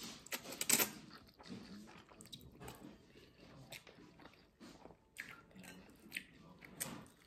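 A person slurping a mouthful of noodles, loudest just under a second in, then chewing them with wet mouth smacks and a few light clicks.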